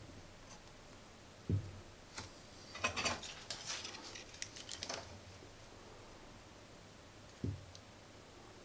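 Faint handling noise: a cluster of small clicks and rustles as a circuit board is fitted into the alligator clips of a helping-hands stand, with a soft low thump before and another near the end.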